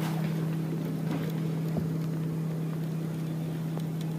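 Boat's outboard motor running steadily at slow trolling speed, an even hum.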